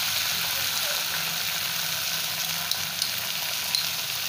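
Onion-tomato masala frying in hot oil in a nonstick pan, a steady sizzle. A few light clicks come about three seconds in.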